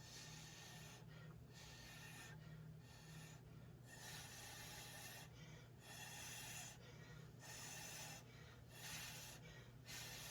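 Breath blown through a drinking straw across wet acrylic pour paint in a string of short, breathy puffs, about one a second, to push the paint out into a bloom. A faint steady low hum lies underneath.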